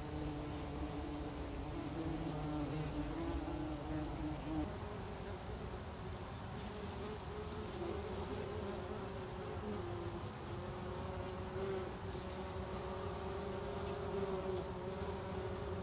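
Bumblebees of a colony inside their nest box buzzing: a steady hum of several overlapping wingbeat tones that waver in pitch and shift about four and a half seconds in.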